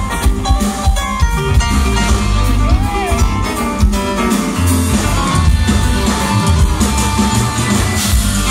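Live rock band playing at full volume: drum kit, bass guitar, electric guitar and keyboards together, with a strong bass line and a brief bent note about three seconds in.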